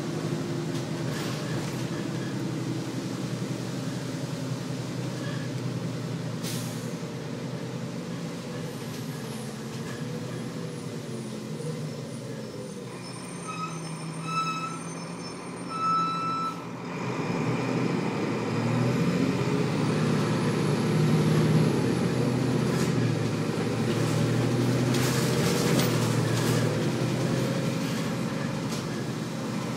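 Cabin sound of a 1998 Nova Bus LFS city bus with a Detroit Diesel Series 40 inline-six diesel and Allison transmission. The engine note falls as the bus slows, two short electronic chime tones sound about halfway through, then the engine climbs in pitch and grows louder as the bus pulls away again.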